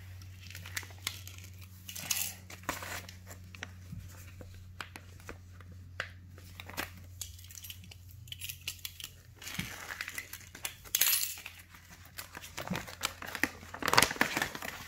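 Clear plastic packaging being slit with a utility knife and handled: scattered clicks and crinkling rustles, the loudest crinkling near the end as the plastic bag is pulled open. A steady low hum runs underneath.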